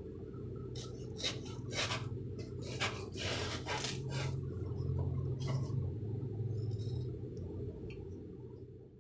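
Kitchen knife cutting through a watermelon's rind and juicy flesh: a series of short rough scraping cuts, with a longer wet slice about three to four seconds in. A steady low hum runs underneath.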